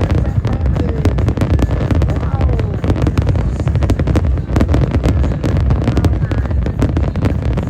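Fireworks display going off continuously: a dense run of bangs and crackles over a deep rumble.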